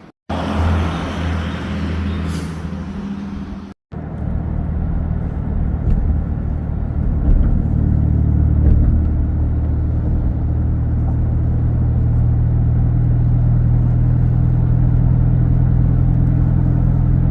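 An engine running at a steady, loud low drone, heard in two pieces split by a sudden cut just under four seconds in. Rushing noise sits over the drone in the first few seconds.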